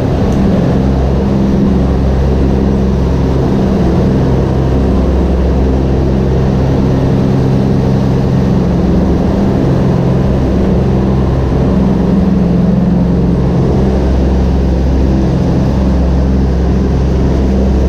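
Twin Pratt & Whitney R-1830 radial engines of a C-47 Skytrain droning in flight, heard from inside the bare metal cabin. The drone is loud and steady, with low tones that slowly swell and fade.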